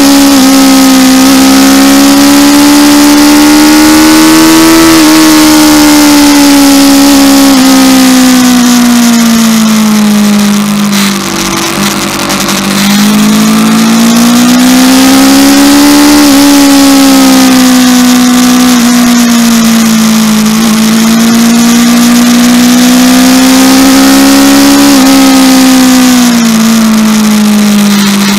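Aprilia RSV4's V4 engine heard from on board while riding, its note rising and falling slowly with the throttle. The note dips briefly about twelve seconds in and again near the end. A steady hiss of wind runs under it.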